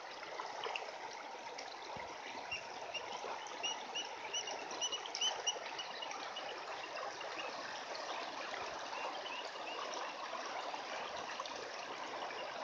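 Shallow creek water flowing and trickling steadily over stones. A string of short, high chirps runs through the first half.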